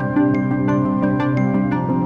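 Background music: a soft, gentle tune with struck mallet-percussion notes about three times a second over held chords.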